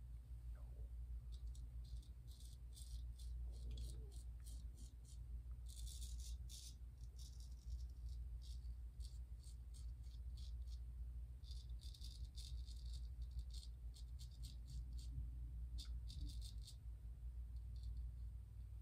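Gold Dollar 208 straight razor scraping through stubble in short strokes that come in quick clusters, over a low steady hum.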